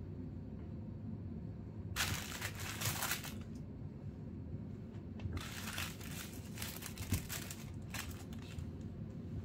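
Hanging fabric fish cat toy with shiny crinkly fins crinkling and rustling in a few bursts as a cat paws and bats at it, about two seconds in, again around five and a half to seven seconds, and briefly near the end, over a steady low hum.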